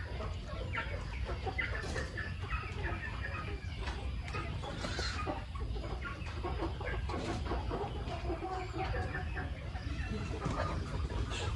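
A flock of free-range chickens clucking, many birds calling at once in short overlapping notes, over a low steady rumble.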